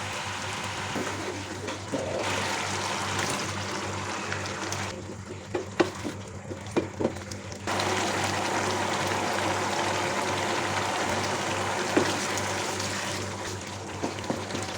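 Chicken skin frying in hot oil, a steady sizzle. It drops away for a few seconds in the middle, where a few sharp clicks are heard, and then comes back.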